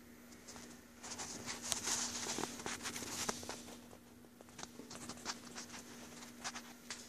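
Faint rustling and scattered clicks from a handheld camera being moved, densest in the first half, over a steady low hum.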